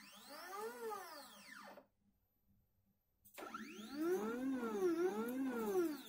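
Stepper motors of a 3018 desktop CNC router whining as the machine moves, the pitch rising and falling in repeated arcs with each move. They stop for about a second and a half partway through, then start again, louder.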